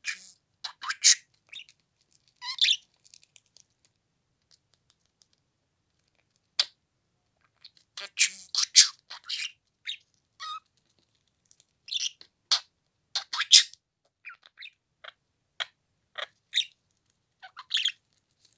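Pet budgerigar giving short, high chirps in scattered clusters, with quiet gaps between them.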